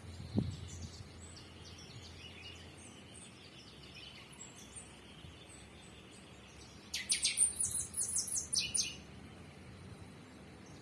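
Small songbirds chirping, faint and scattered at first, then a quick run of rapid, high, sharp notes lasting about two seconds past the middle.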